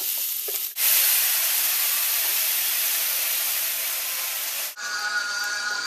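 Onions frying in a pan with a spoon scraping, then a sudden loud, even hiss for about four seconds as vodka is poured into the hot pan and boils off over the onions. Near the end the hiss cuts back to a quieter sizzle, with guitar music coming in.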